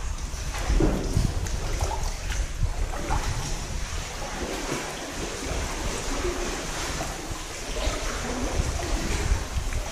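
Seawater sloshing and splashing against the rock walls of a narrow sea cave around a sea kayak, with a steady low rumble underneath and small irregular splashes throughout.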